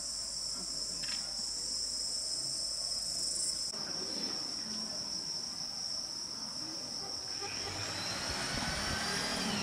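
Insects shrilling steadily on a high, continuous note. About four seconds in, the higher part of the shrill stops. In the last two seconds a rising whine with several tones swells up.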